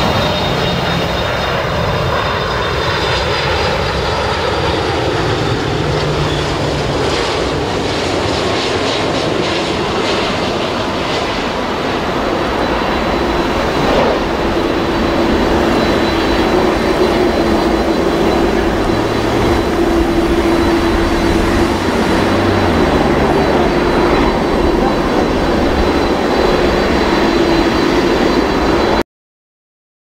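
Boeing 747-400 freighter's four jet engines on a crosswind landing approach. A whine falls in pitch over the first few seconds as the jumbo passes, then the jets run steadily. The sound cuts off suddenly near the end.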